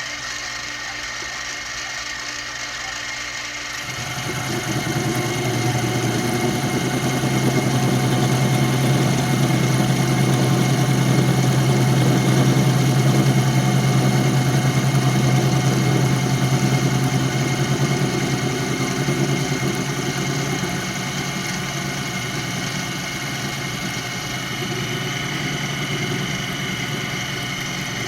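Benchtop mini mill running, its spindle turning a workpiece held in it like a lathe. About four seconds in, a louder, rougher sound comes in as the stationary tool bit cuts across the end of the spinning workpiece to face it square. It eases off after about twenty seconds.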